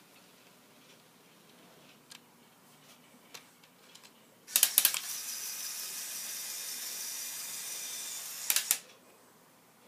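Lego Power Functions electric motor clicked on with a few sharp clicks, running with a steady whine for about three and a half seconds, then clicked off with more sharp clicks.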